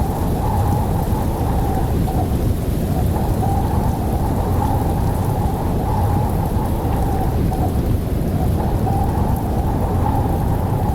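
Heavy rain and storm wind: a steady, dense rushing with a deep rumble underneath.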